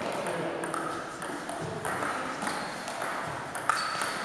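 Table tennis rally: the celluloid ball clicks off the bats and the table in quick alternation, about every half second, with one sharper, louder hit near the end.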